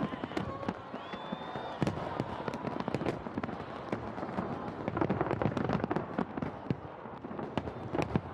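Fireworks display: shells bursting in a dense run of bangs and crackles close together, thickest about halfway through and again near the end.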